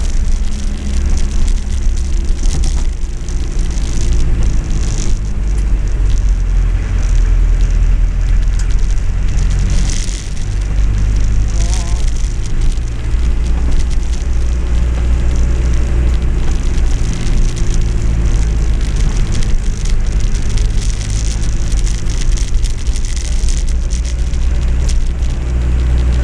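Ex-military Land Rover 110 hard top driving in heavy rain, heard from inside the cab: a steady low engine and drivetrain drone under the hiss of rain and wet road. The drone dips briefly about ten seconds in.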